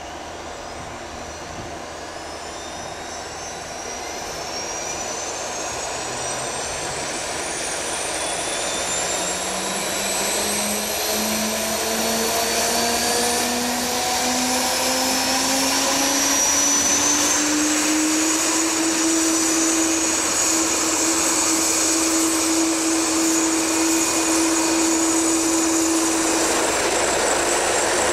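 BK117C-2 helicopter starting up: its twin turboshaft engines whine up in pitch as the rotor spools up, growing steadily louder. About two-thirds of the way in it settles at a steady pitch and level.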